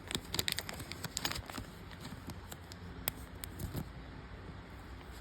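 Handling noise: a cluster of light clicks and rustles in the first second and a half, then a few isolated clicks, over a faint low hum.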